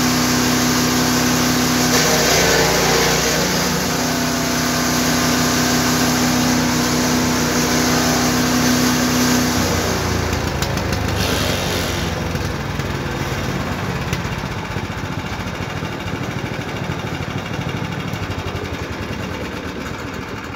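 GTM GTS 900 wood chipper's 9 hp engine running at a steady speed. About halfway through its steady note breaks and its pitch falls as it slows down, the sound gradually fading.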